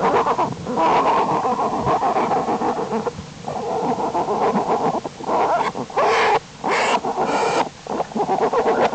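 Black bear cubs humming as they nurse, a rapid pulsing hum that runs in stretches of a second or two broken by short pauses. Three short, harsher bursts come about two thirds of the way through.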